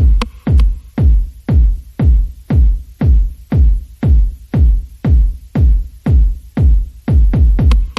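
Background electronic music driven by a heavy, deep kick drum on a steady beat of about two a second, with a quick run of extra beats near the end.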